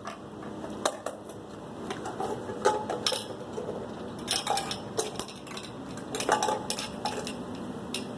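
Scissors cutting through the thin sheet-metal wall of an empty aerosol spray paint can: a series of irregular sharp metallic clicks, snips and crunches of the bending metal.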